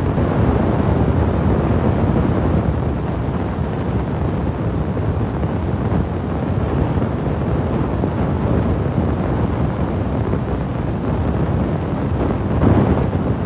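Steady, loud low rumbling noise with no distinct tones, swelling briefly near the end.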